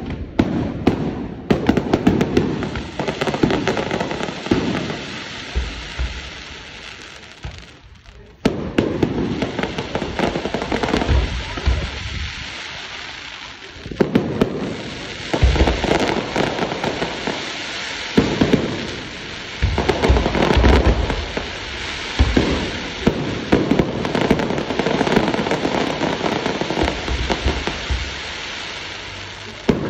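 Aerial firework shells bursting one after another in a string of booms, with steady crackling and fizzing from the glittering stars between them. The barrage eases into a lull and picks up again with a sharp burst about eight seconds in.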